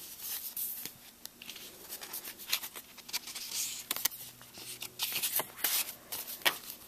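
Thin cardstock cards flipped through by hand one after another: paper sliding and rubbing against paper in short rustles, with a few sharp ticks as cards snap off the stack.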